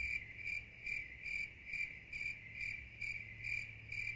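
Faint cricket-like chirping: a high-pitched trill pulsing evenly about twice a second, over a low steady hum.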